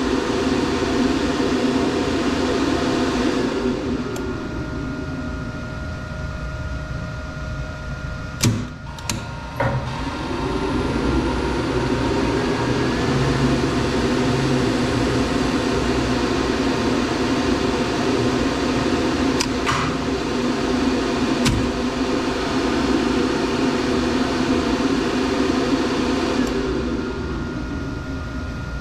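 Elevator machinery humming as it runs, winding down about four seconds in, a few sharp clicks around nine seconds, then building up and running again until it winds down near the end, typical of a car stopping and starting a run.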